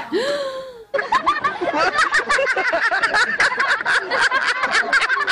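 A brief wailing cry. Then, starting abruptly about a second in, a crowd of many people laughing together, a dense, continuous wash of overlapping laughter.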